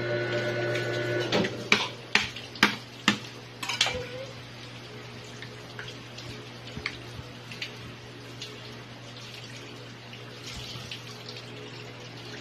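Tap water running into a stainless-steel sink while a live crab is scrubbed under it. The water is louder for the first second or so, then settles to a quieter steady hiss. About five sharp knocks come between roughly one and four seconds in as the crab is handled against the sink.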